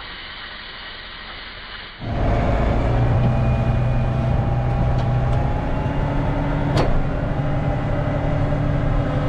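A steady hiss for about two seconds, then a sudden change to a large farm machine's diesel engine running steadily, with a single sharp click about seven seconds in.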